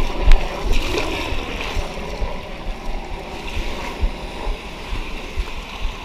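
Shallow surf washing and fizzing over wet sand, with low thumps on the microphone, loudest about a third of a second in.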